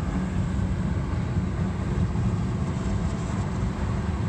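Steady running noise of a 2007 BMW 525xi E60 on the move, a low road and drivetrain rumble with no distinct tick standing out.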